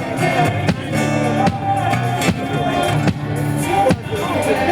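Music with a steady drum beat, bass and guitar.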